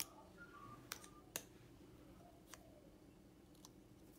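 Near silence in a small room, broken by a few light taps and clicks as paper and embossing supplies are handled on a craft desk.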